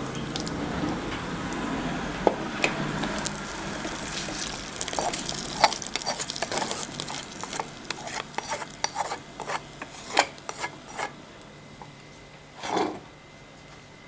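Ghee tempering of pepper, cumin, cashews and curry leaves sizzling in a small kadai. A wooden spatula then clicks and scrapes against the pan as the tempering is tipped and scraped into a pot of cooked pongal. The scraping thins out near the end.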